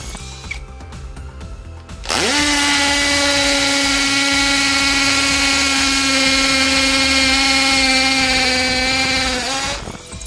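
Cordless hammer drill-driver spinning up about two seconds in and running steadily with a motor whine while its masonry bit drills into a concrete paving block, then winding down near the end.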